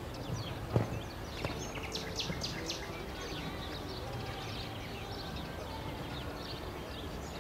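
Background noise with small birds chirping repeatedly, the chirps thickest a couple of seconds in. A single sharp knock just under a second in.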